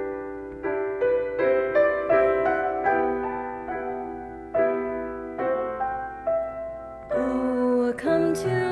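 Piano playing the slow introduction to a hymn: gentle chords struck one after another, each note dying away before the next.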